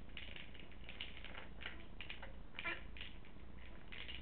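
A treat ball rattling and knocking as a small dog noses it across the carpet: a quick, irregular string of short rattles, the loudest about two and a half seconds in.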